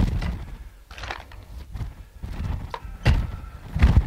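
Camera being handled and carried: irregular rumbling and rustling on the microphone with knocks, the two loudest thumps about three and four seconds in.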